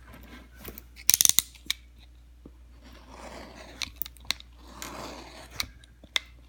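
Utility knife cutting and scraping through the thick leather collar of a work boot, with a quick run of loud sharp clicks about a second in and scattered ticks after. The blade is dull, so the owner says it needs replacing.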